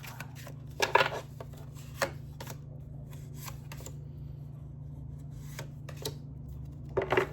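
Tarot cards being shuffled and handled: a string of separate card snaps and slaps, the loudest about a second in and another cluster just before the end.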